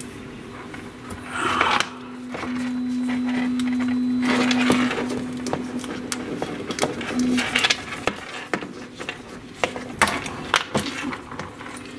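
A black plastic wiring-harness sheath being slit along its length with a small tool, a scraping, tearing sound, then peeled apart by hand with rustling and small clicks. A low steady hum sits underneath, loudest during the slitting.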